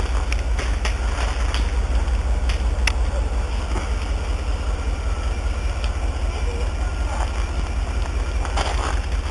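Footsteps crunching over ice-glazed ground and snapping twigs from ice-laden fallen branches, in a few scattered sharp crackles. A steady low rumble lies under them throughout.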